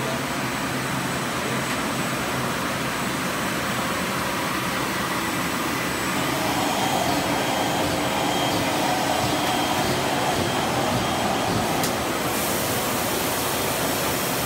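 Blown film extrusion line running at production speed: a steady mechanical din, a little louder from about six seconds in.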